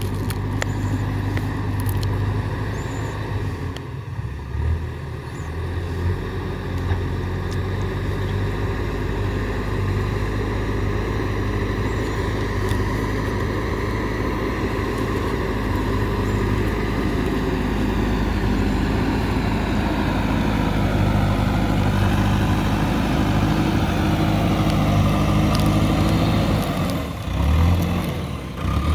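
JCB 3DX backhoe loader's diesel engine running steadily as the machine works. Its note shifts down and back up in the second half as the load changes, with a few sharp knocks in the first second.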